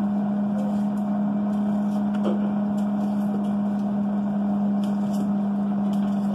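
Instant Pot air fryer oven running: its fan and rotisserie motor give a steady hum with a fan's rush of air, while a whole chicken turns in the mesh basket.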